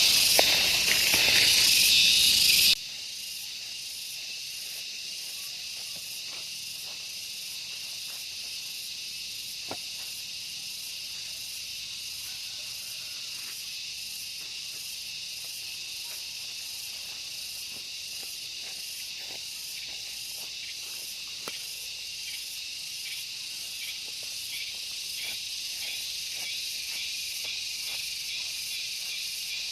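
Steady high-pitched insect buzzing, as of crickets or cicadas, loud for about the first three seconds, then dropping suddenly to a softer, faintly pulsing buzz. A few faint clicks sound here and there.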